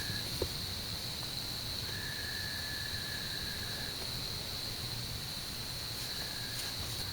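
Insects trilling outdoors: one steady high-pitched trill throughout, with a second, lower trill that starts and stops, running for about two seconds in the middle.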